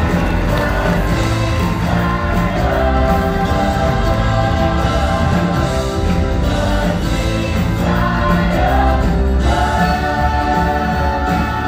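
Musical theatre cast singing together in a full-company finale number with the pit band, held sung notes over a steady accompaniment.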